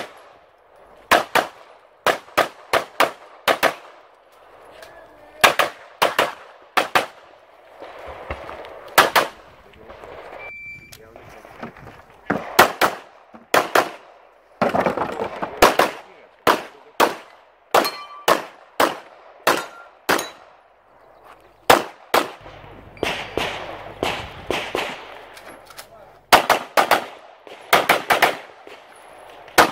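Handgun fired rapidly in pairs and short strings on an IPSC practical-shooting stage, with brief pauses between strings while the shooter moves to new positions.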